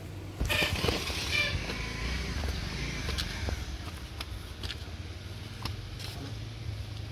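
Car running with a steady low engine and road rumble, a louder rustling noise about half a second in, and a few sharp clicks.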